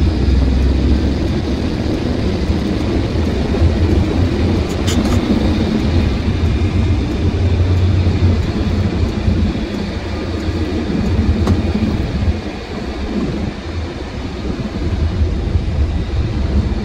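Truck engine and road noise heard from inside the cab while driving: a steady low rumble that drops back a little for a couple of seconds about two-thirds of the way through.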